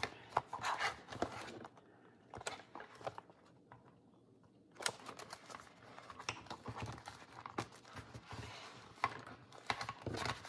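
Paper and card pages of a handmade journal rustling and tapping as they are handled and turned, with a quieter stretch of a couple of seconds before the rustling picks up again.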